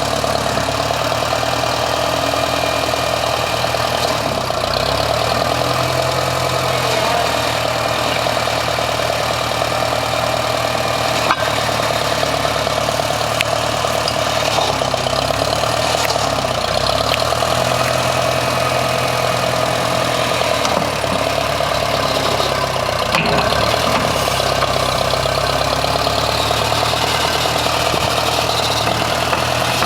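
An engine or motor running steadily, its low note shifting a little every few seconds.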